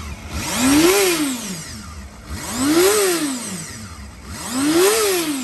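1996 Honda Hornet 250's water-cooled inline four-cylinder engine being blipped three times, about two seconds apart, each rev rising quickly and falling back to idle.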